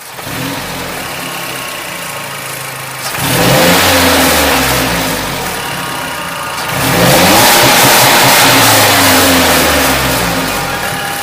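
A Mazdaspeed 3's turbocharged 2.3-litre four-cylinder engine running and being revved twice. Each rev rises and falls back over about three seconds, the first about three seconds in and the second about seven seconds in.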